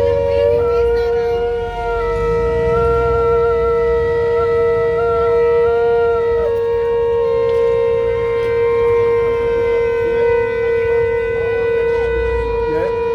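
A shofar blown in one long, unbroken blast at a steady pitch, with a second, wavering tone sounding alongside it that shifts pitch about six seconds in.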